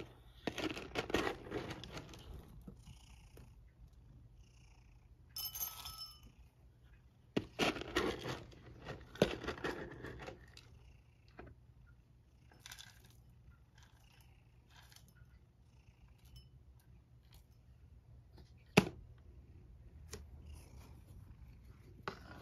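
Domestic cat purring steadily, with scattered rustles and clinks over it and one sharp click late on.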